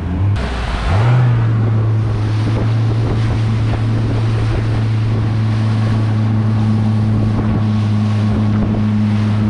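Boat's outboard motor running at speed: a steady drone that climbs slightly about a second in and then holds. Hull spray and wind rush over the microphone with it.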